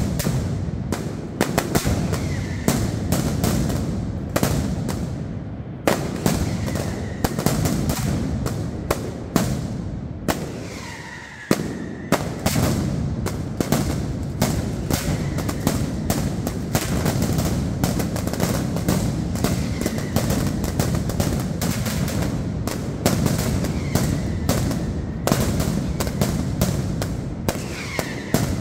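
Mascletà: a dense, continuous barrage of firecracker bangs with short whistles now and then. It thins out briefly about eleven seconds in before a loud bang sets it going again.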